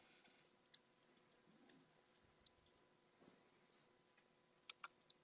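Near silence with a few faint computer mouse clicks, scattered singly and then three in quick succession near the end.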